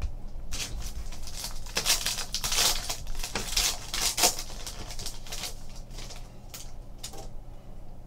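Foil trading-card pack wrapper being torn open and crinkled by hand: a run of crackling rips and crumples, densest in the first half, thinning to a few fainter crinkles toward the end.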